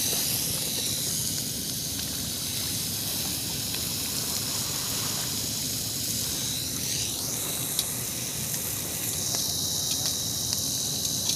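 Fish sizzling on a ridged grill pan over a portable gas stove: a steady hiss.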